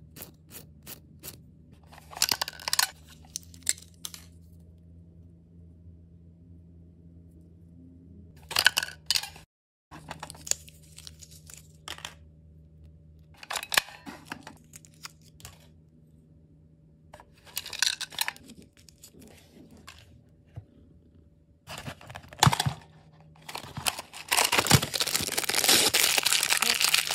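Small plastic toy pieces being handled, with scattered clicks, taps and short rustles. Near the end comes a long, loud crinkling tear as a plastic blind-bag wrapper is ripped open.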